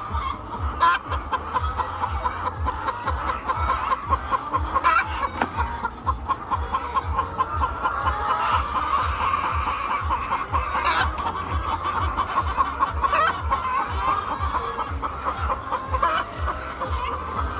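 Laying hens clucking, with fast strings of short clucks repeating through the whole stretch.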